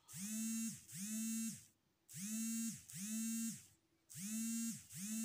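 A small motor buzzing in pairs of short buzzes, about half a second each, with a pair roughly every two seconds. Each buzz slides up in pitch as it starts and drops as it stops.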